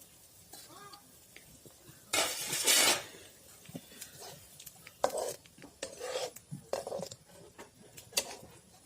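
Spoon clinking and scraping against a cooking pot as the fish curry is stirred, with one louder, longer rasping scrape about two seconds in and a few shorter knocks and scrapes after it.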